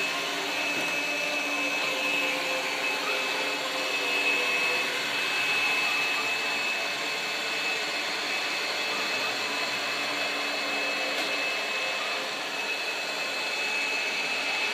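iRobot robotic floor cleaner running: a steady motor whir with a constant high-pitched whine.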